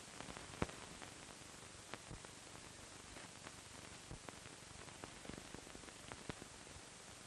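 Steady hiss of an old optical film soundtrack with scattered faint clicks and pops, the sharpest a little over half a second in; no music or effects.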